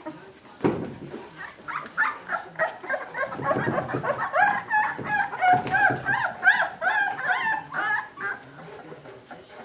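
Two-week-old Newfoundland puppies whimpering, a quick run of short high-pitched cries that rise and fall in pitch, several a second, thinning out near the end.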